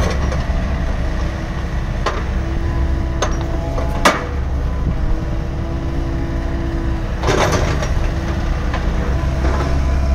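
Komatsu PC138US-10 excavator's diesel engine running steadily at idle, with the machine standing still. A few sharp clicks are heard, the loudest about four seconds in.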